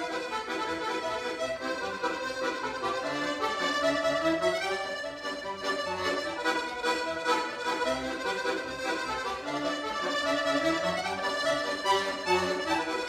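Piano accordion played solo: a melody over a steady bass and chord accompaniment.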